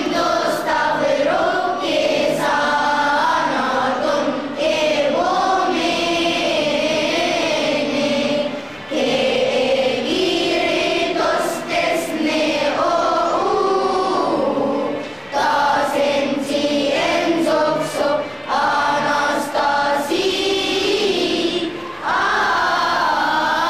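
Children's choir singing together, many young voices carrying long phrases, with brief breaks for breath about a third and two thirds of the way through.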